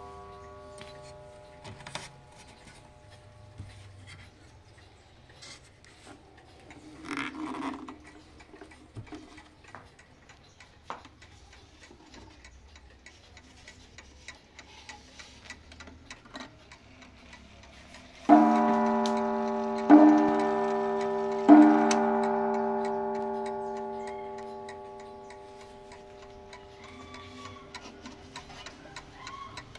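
Mantel clock movement ticking faintly, then its spiral coil gong struck three times, about a second and a half apart. Each strike rings out and slowly fades.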